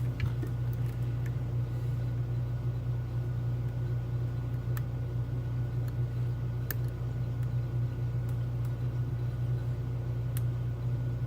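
Steady low hum throughout, with a few faint, sparse clicks from a pick working the pins of a Medeco Keymark lock.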